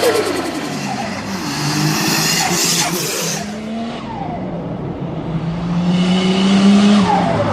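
Turbocharged car engine revving up and lifting off the throttle several times, its pitch climbing and then dropping sharply. There is a hissy burst about three seconds in, typical of a turbo fluttering (compressor surge) on lift-off with no blow-off valve.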